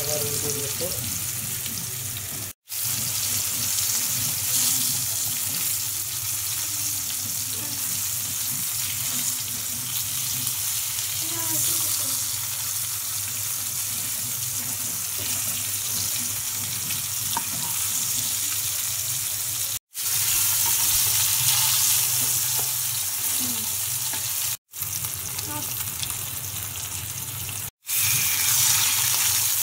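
Hilsa fish steaks sizzling as they shallow-fry in hot oil in a pan: a steady hiss and crackle, with a low hum underneath. The sound cuts out for an instant four times.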